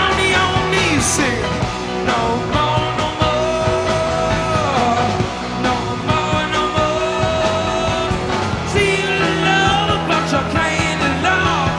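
Rock music: a band recording with a melody line that slides up and down in pitch over a steady beat.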